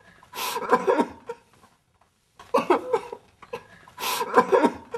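A man crying hard in three bouts of sobs, each opening with a sharp gasping breath and breaking into wailing cries.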